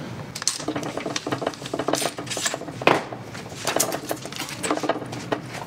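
Metal clicks, clinks and rattles as a mountain bike's rear wheel is unbolted with an Allen wrench and pulled out of the frame, with one sharper knock about three seconds in.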